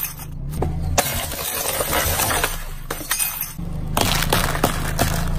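A car tyre crushing a plastic wall clock: its glass cover cracks and crunches with many sharp clinks and snaps. About four seconds in the crunching gives way to a steadier low hum.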